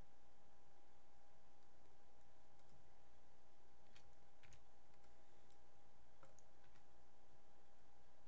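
A few scattered faint clicks of a computer mouse and keyboard over a steady electrical hum.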